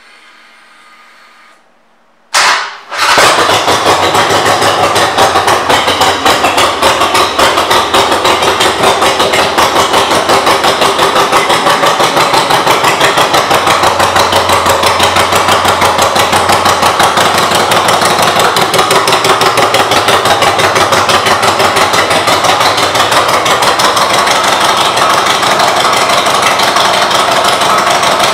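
A 2009 Harley-Davidson Nightster's 1200 cc air-cooled V-twin, breathing through Vance & Hines aftermarket pipes, fires up about two seconds in. It then idles loudly and steadily with a rapid pulsing exhaust beat.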